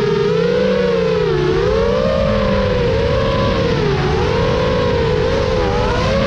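FPV quadcopter's motors and propellers whining, the pitch swinging up and down again and again as the throttle changes, over a low rumble.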